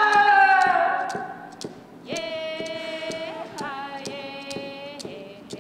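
Voices singing long, wordless held notes without accompaniment. A sliding, falling note fades out about a second and a half in, and a new held note starts about two seconds in. A steady light ticking runs through it at two or three ticks a second.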